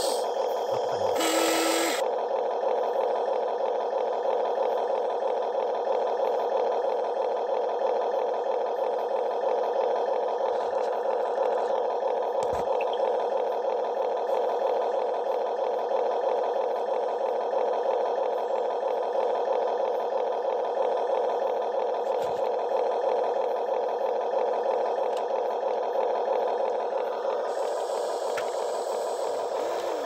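Small electric motors and gearboxes of a Huina 1:14 RC excavator running, giving a steady, fast-fluttering buzzing whir as the arm and tracks move, with a short spill of soil in the first two seconds and a few faint knocks.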